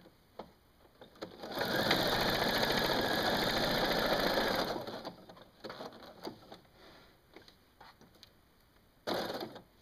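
Domestic sewing machine stitching a three-step zigzag through thick cotton prefold with elastic: a steady run of about three seconds, a few faint clicks as the fabric is adjusted, then a short burst of stitching near the end.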